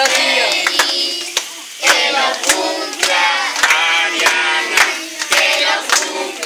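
A group of children and adults singing a birthday song together, clapping along.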